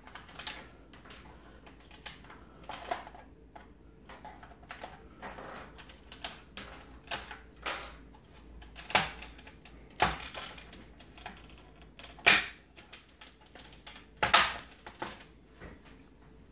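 Scattered plastic clicks, knocks and rattles of an automotive instrument cluster being taken apart by hand: the gauge needles worked loose and the plastic faceplate lifted off the circuit board, with a few louder knocks in the second half.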